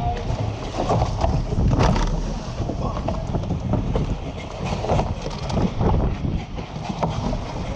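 Wind buffeting the microphone of a camera mounted on a surf boat being rowed through open ocean, with water rushing and splashing against the hull in irregular bursts.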